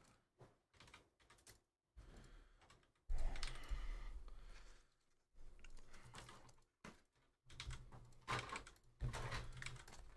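Typing on a computer keyboard: scattered key clicks at first, then denser, louder typing mixed with bumps and handling noise on the desk from about three seconds in.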